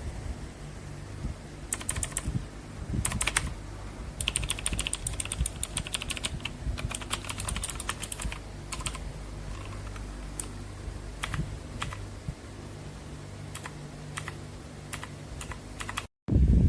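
Meta K108 mechanical keyboard being typed on: a few keystrokes, then a fast run of typing for about four seconds, then scattered single key presses.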